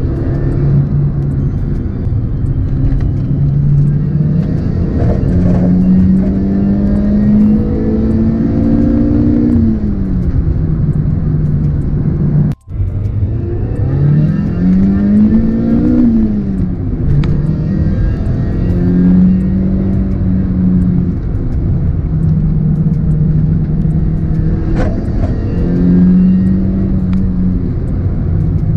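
Toyota Corolla GT's 4A-GE 20-valve four-cylinder engine heard from inside the cabin under way, its note climbing and dropping back twice as it accelerates and eases off, holding steady in between, over steady road and wind noise. The sound cuts out for an instant near the middle.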